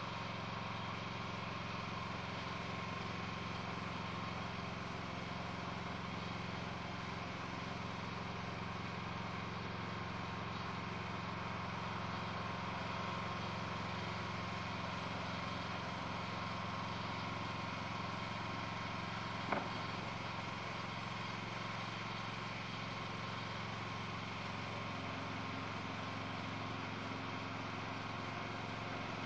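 An engine running steadily at an even speed, with one sharp click about twenty seconds in.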